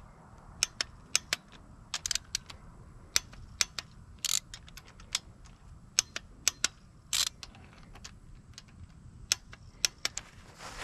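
Torque wrench set to 18 ft-lb rechecking the oil pump bolts on an LS V8: irregular sharp metallic clicks from the wrench and socket, a few louder than the rest.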